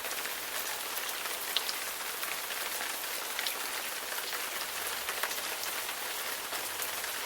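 Rain falling steadily: an even hiss scattered with the ticks of single drops hitting a surface.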